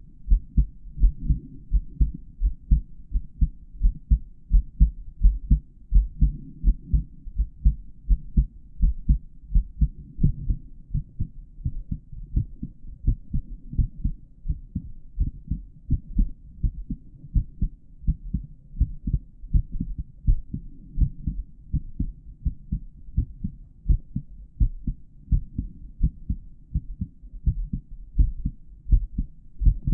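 An adult man's heartbeat heard through a stethoscope on the chest: a steady, regular run of low thudding beats.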